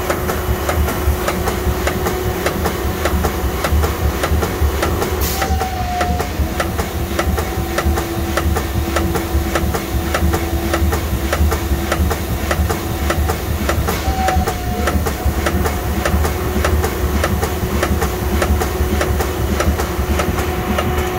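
CNC mill broaching a square hole in brass: the square broach in the locked spindle pecks down and back in a fast, regular rhythm of sharp ticks, shaving a couple of thousandths each stroke. Under it runs a steady machine hum.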